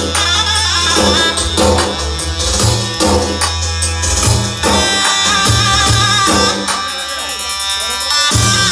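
Music with drums and tambourine over a pulsing bass line; the bass drops out for about a second near the end.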